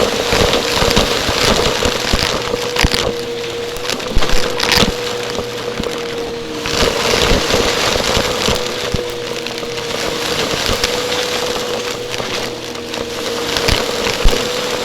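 Vacuum cleaner running close to the microphone: a steady motor whine under continuous crackling and clicking.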